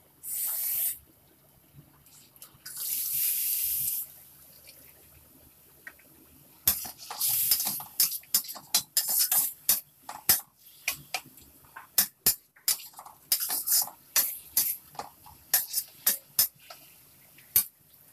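Metal spatula scraping and tapping a stainless steel wok in quick, irregular strokes while stir-frying minced pork, with short bursts of sizzling. Near the start there are two longer hissing bursts as liquid goes into the hot wok.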